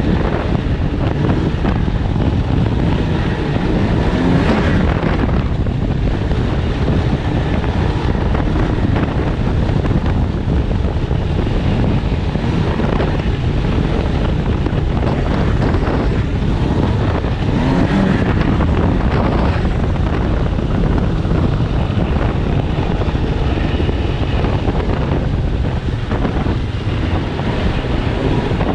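Snowmobile engine running steadily while riding, with wind buffeting the microphone.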